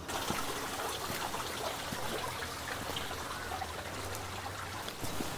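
Running water trickling steadily, with a faint low hum beneath it.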